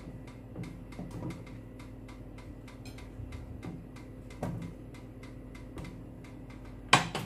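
Light ticking, a few ticks a second, from a Tefal OptiGrill+ contact grill as its plates start heating, while raw eggplant slices are laid onto the ridged grill plate. There is a soft knock about four and a half seconds in and a sharper, louder one near the end, over a steady hum.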